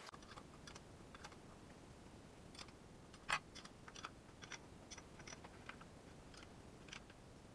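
Faint, irregular clicks and taps of a wrench working the bolts as a water pump is fitted to a Skoda 105 engine block, with one sharper click about three seconds in.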